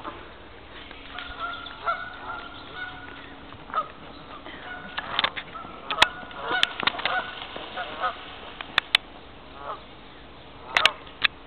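Geese honking repeatedly in short calls, agitated by a man chasing them at the water's edge. A few sharp clicks or knocks, the loudest sounds, come in the middle and near the end.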